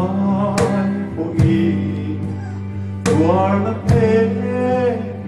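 A man singing a gospel song into a microphone, amplified through loudspeakers, over instrumental accompaniment with steady low held notes and sharp plucked attacks every second or so.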